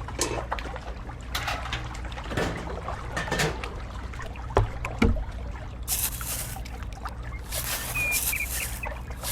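Water splashing and trickling over a steady low hum, with scattered knocks and two longer bursts of splashing in the second half.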